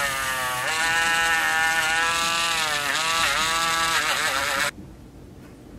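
Dremel rotary tool spinning a soft wire-wheel brush against a hand: a steady motor whine with many overtones that dips briefly in pitch a few times, then cuts off suddenly near the end.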